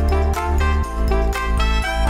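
Background music with a steady beat, about three strikes a second, over heavy sustained bass notes.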